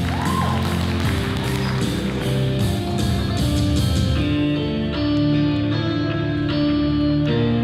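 Music led by guitar, with a regular beat that thins out about four seconds in, leaving held chords.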